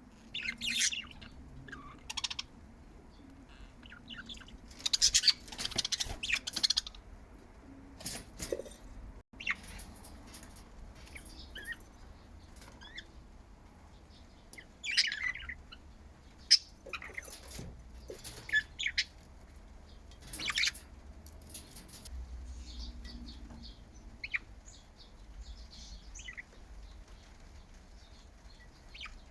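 Budgies chirping and chattering in scattered bursts of short high-pitched calls, with a few sharp clicks between them.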